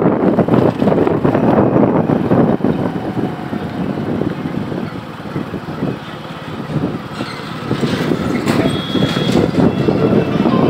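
Wind buffeting the microphone on a moving motorbike, mixed with engine and road noise. It eases off about halfway through, then builds again.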